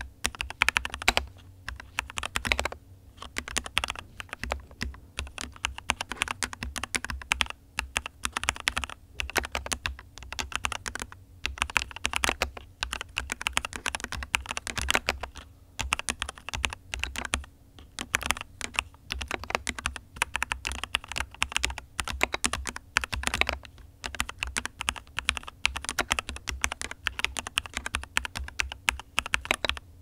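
Keychron K2 Pro mechanical keyboard with Keychron Brown tactile switches and double-shot PBT OSA keycaps being typed on steadily: a dense run of key clacks, broken by a couple of short pauses.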